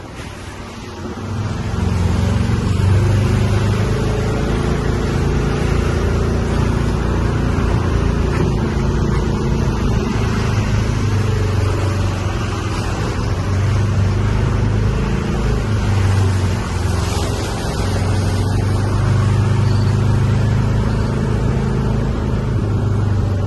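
A vehicle engine running steadily with a low drone, heard while riding along, with road noise. It is quieter for the first couple of seconds, then picks up and holds steady.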